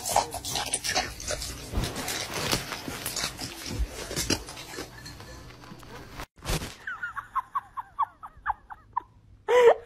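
Scattered knocks and rustling, then a small dog giving a quick run of short, high whines, about four or five a second, for a couple of seconds.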